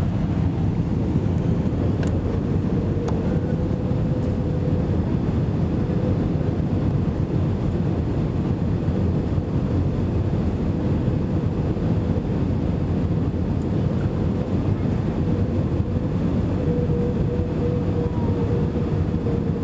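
Steady cabin noise of an Airbus A318 airliner landing: engine and airflow noise with a steady hum running through it.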